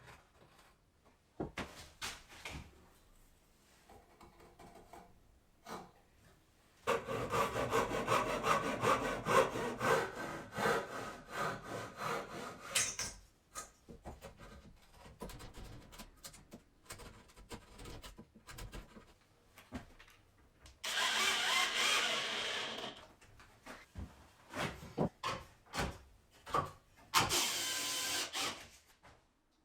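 Woodworking sounds on wood: a few seconds of rapid rasping strokes like sawing, two later short bursts of hiss, and scattered clicks and knocks of pieces being handled.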